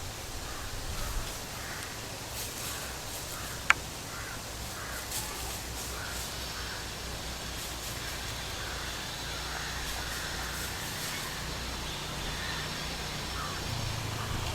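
Crows cawing again and again over a steady low background hum, with one sharp click about four seconds in.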